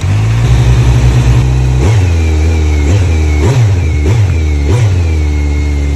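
Motorcycle engine idling through an aftermarket Akrapovič carbon-fibre slip-on silencer, with five quick throttle blips about two to five seconds in.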